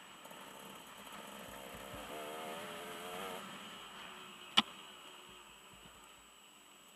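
Enduro dirt bike engine, heard from a helmet camera, running and revving up and down as the bike rides, with one sharp knock about four and a half seconds in.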